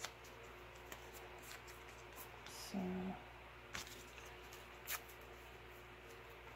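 Faint handling of paper scraps on a craft table: a few light taps and clicks as pieces are picked up and set down, with a short low hum about three seconds in.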